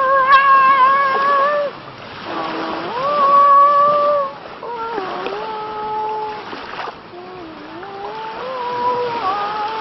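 A man's voice wailing in long, high, wavering held notes, about six in a row with short breaks, over water splashing and sloshing around him.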